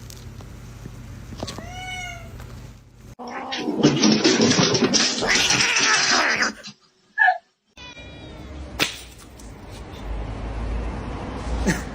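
Domestic cat vocalising: a short meow, then a loud, harsh yowl of about three seconds, and more short meows later on.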